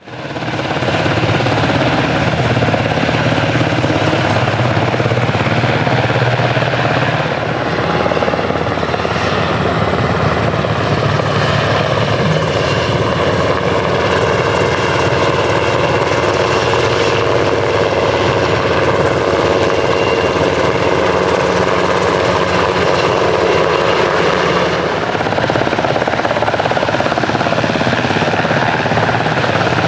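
US Coast Guard helicopter flying, its main rotor beating fast and evenly over the whine of its turbine engines, loud and steady with a brief dip about eight seconds in.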